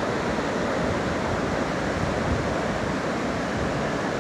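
Ocean surf breaking on a sandy beach, a steady wash of waves, with wind buffeting the phone's microphone as a fluctuating low rumble.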